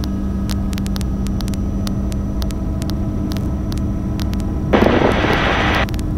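Bell 206 JetRanger helicopter in flight, heard on board: a steady rumble with a constant hum, with scattered faint clicks. A brief louder rush of noise comes about five seconds in.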